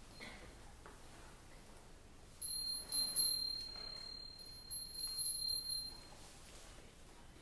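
A small high-pitched metal chime struck, then struck again half a second later, ringing on as one clear tone for about three seconds and fading out.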